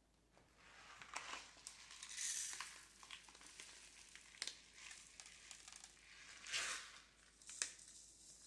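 A bag of brown rice crinkling and rustling while rice is scooped into a measuring cup, with a scatter of small clicks. About two-thirds of the way through, a short hiss of dry rice is poured into the Instant Pot's inner pot, followed by a sharp click.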